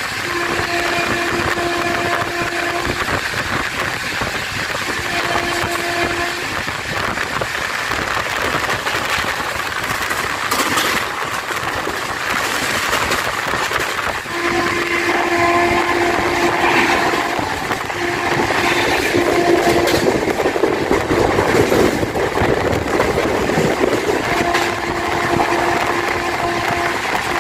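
Express train running at speed, heard at an open coach door: a steady rush of wind and wheels on rail, with some clatter over rail joints. The WAP-7 electric locomotive's horn sounds in several blasts of one to three seconds each, two in the first six seconds, a broken run in the middle and another near the end.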